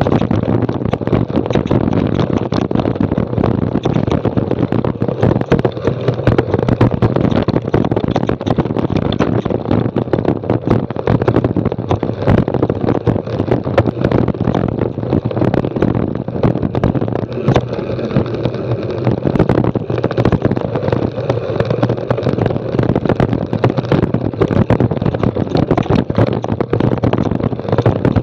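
Mountain bike riding fast down a rocky dirt trail: a constant rough clatter of tyres and bike jolting over loose stones, with many sharp knocks, and wind on the action camera's microphone.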